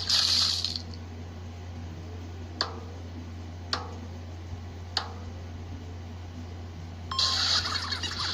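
A string of short comedic sound effects: a brief hissy burst, then three sharp clicks about a second apart, each with a short ring, then a louder buzzy effect with a steady tone starting near the end.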